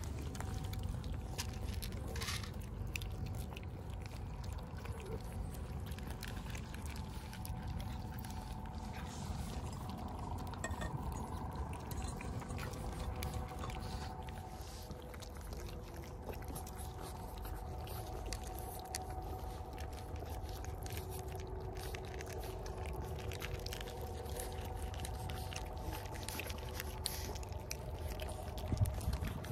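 Several cats eating wet cat food and dry kibble close up: many small wet clicks and smacks of chewing and licking, over a steady low rumble.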